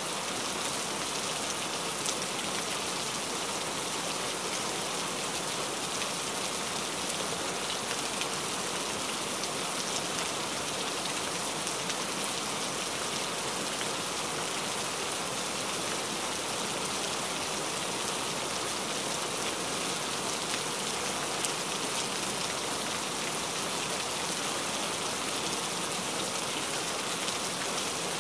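Steady rain falling: an even hiss with the odd sharper drop standing out.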